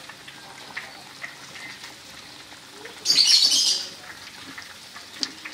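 Broth simmering in a wok as a block of instant noodles is laid in, with faint ticks and a loud, high hiss lasting about a second about three seconds in.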